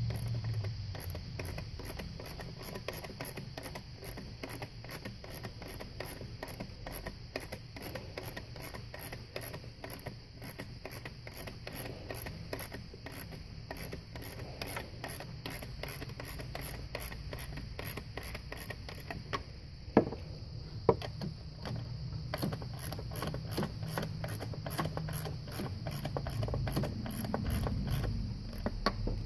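Hand ratchet clicking in short runs as the thermostat housing bolts are turned, with two sharper metallic clicks about two-thirds of the way through.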